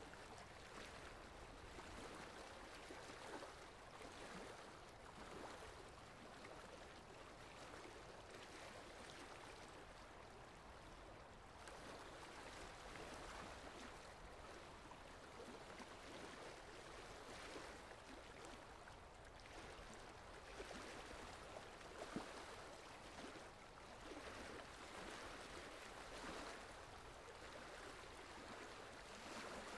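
Faint, steady sound of flowing water, like a babbling stream, used as a relaxing ambient track.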